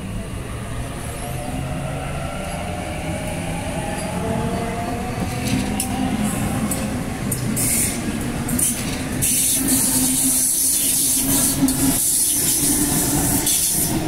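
Sydney Trains Tangara double-deck electric train moving past close by, its traction motors giving a whine that rises in pitch as it gathers speed. From about halfway, wheel-on-rail clicks and rushing noise grow louder.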